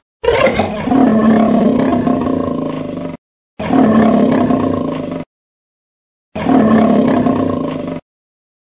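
Lion roaring three times, the first roar about three seconds long and the next two shorter, each starting loud and fading before it cuts off suddenly.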